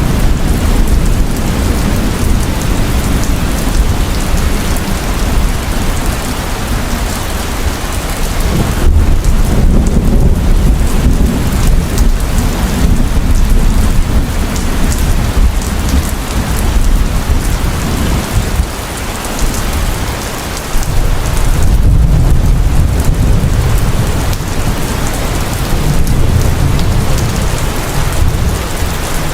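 Heavy, steady rain pouring down, with low rolling thunder that swells about a third of the way in and again in the last third.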